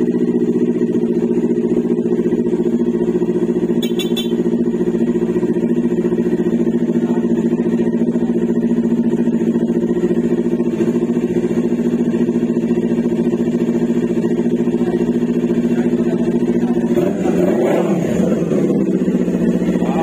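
Kawasaki Ninja 400 parallel-twin engine running through an SC Project slip-on exhaust, idling steadily. About seventeen seconds in the pitch rises and falls briefly as the throttle is blipped.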